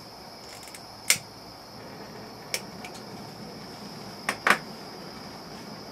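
Butane gas soldering iron hissing steadily as gas flows from its open valve, while a handheld lighter is clicked about five times to light it, since the iron has no built-in igniter. The loudest clicks come about a second in and near the end.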